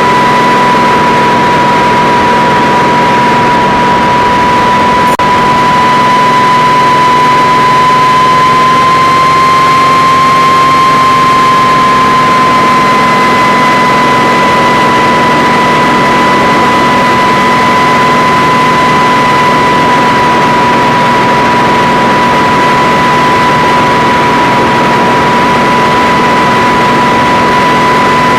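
Kamov Ka-26 helicopter running steadily in flight: its twin radial piston engines and coaxial rotors over a strong high-pitched whine. The whine rises slightly in pitch about ten seconds in, then settles back.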